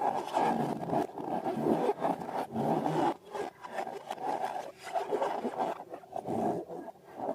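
Slime being stirred and worked: an irregular run of sticky scraping and squelching, with short breaks around the three-second mark and near the end.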